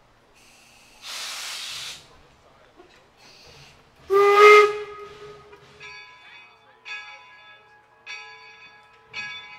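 Steam locomotive York, a 4-4-0, lets off steam in two hisses, then gives one short blast on its steam whistle about four seconds in, the loudest sound. Then its bell starts ringing, about one stroke a second.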